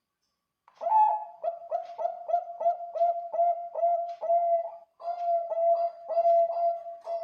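Bangkok-strain perkutut (zebra dove) singing its cooing song. It starts about a second in with a quick string of short, clipped coos, about three a second, pauses briefly, then carries on with longer, drawn-out coos.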